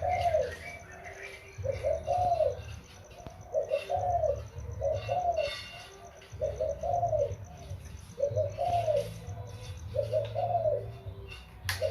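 A young decoy dove cooing over and over, one short arched coo about every second, with a low hum beneath each; a sharp click comes near the end.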